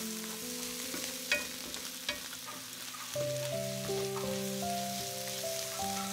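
Sliced mushrooms and onions sizzling in a stainless steel frying pan while a wooden spatula stirs them, with a couple of sharp spatula knocks about a second and two seconds in. Soft background music plays underneath.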